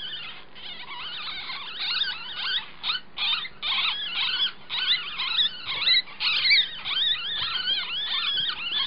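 Nine-day-old ferret kit squeaking, a rapid string of high-pitched chirps that sweep up and down, getting louder and more continuous from about two seconds in.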